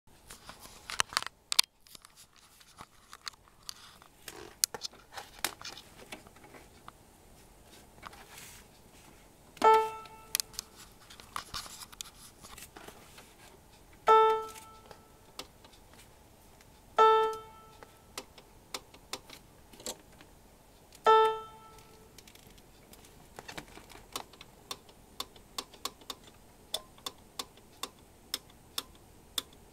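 Roland SC-88 Pro Sound Canvas sound module playing the same short Piano 1 note four times through small external speakers, a few seconds apart, each ringing briefly and dying away, sounded with the volume knob's preview push. Between the notes and more often near the end come light clicks of its front-panel buttons and knob being worked.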